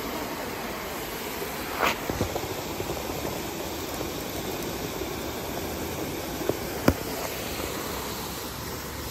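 Steady rush of water pouring over a dam spillway, with a few short knocks from the camera or rod being handled, the sharpest about seven seconds in.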